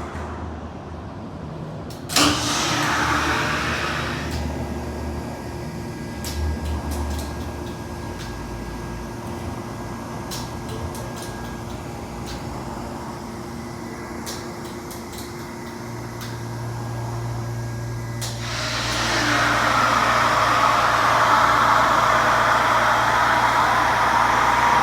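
Hydraulic elevator machinery running in its machine room: a steady mechanical hum with a sudden clunk about two seconds in and scattered clicks in the middle. About eighteen seconds in, a louder rushing sound swells up and holds.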